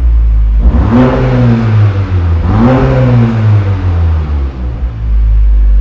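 Audi A5 2.0 TFSI turbo four-cylinder blipped twice through a Bastuck sport exhaust, pitch rising and falling each time, then settling back to idle. The exhaust flap is open, giving the louder, sportier note.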